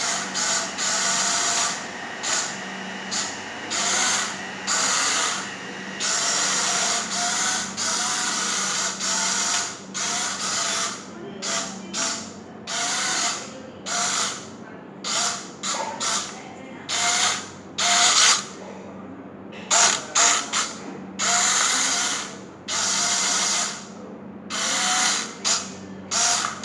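A toy wall-climbing remote-control car's small electric motors whirring in short bursts, starting and stopping every second or so as it is driven back and forth, over a steady low hum.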